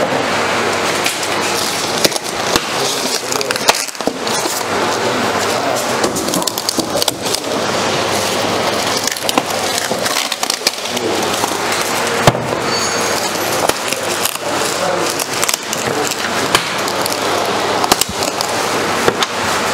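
Plastic packing film crinkling and rustling as it is pulled off by hand, with many sharp crackles.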